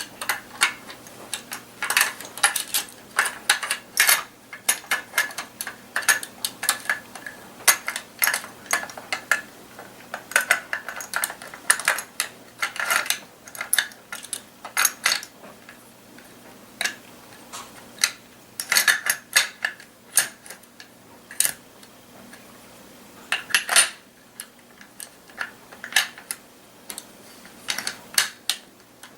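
Steel parts of a Mossberg 500 pump shotgun being handled and fitted back together during reassembly: many irregular metallic clinks and clicks.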